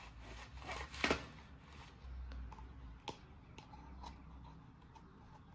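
Plastic toy pieces and their packaging being handled: a brief rustle about a second in, then a few light, separate clicks.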